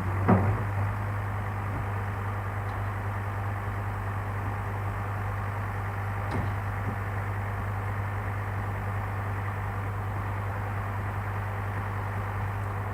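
Engine idling steadily with an even low hum, with a single short knock just after the start.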